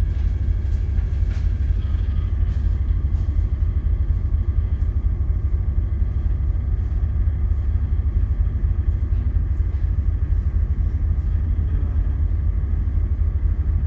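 Steady low rumble with a constant machinery hum: a ship's engine and machinery running, heard from the bridge while the ship is underway.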